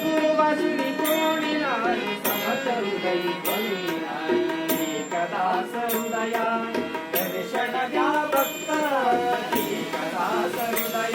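Live Marathi devotional song (bhajan) played by a street singer: a gliding melody with regular sharp percussion strokes about once a second.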